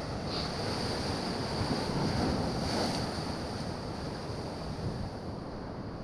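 Sea surf washing on a rocky shore, with wind rushing on the microphone. It swells about two seconds in, then eases.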